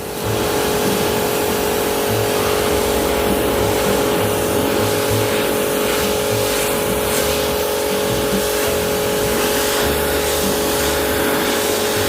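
Pressure washer running: the high-pressure water jet hisses steadily against a wheel while the pump motor holds a steady hum.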